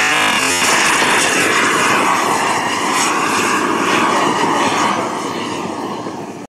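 Jet Italia Atom 250 model turbine engine of a radio-controlled F-16 jet roaring through lift-off and climb-out, its pitch sinking slowly and the sound fading over the last couple of seconds as the jet pulls away.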